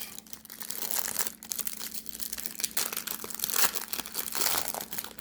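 Packaging of a trading-card hanger box being torn open and crinkled by hand: a dense, irregular run of crackles and small tearing snaps.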